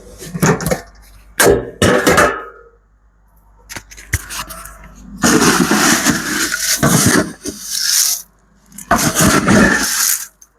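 Chicken scratch grain being scooped and poured, a rattling, rustling noise in short bursts at first, then in a long pour about halfway through and a shorter one near the end.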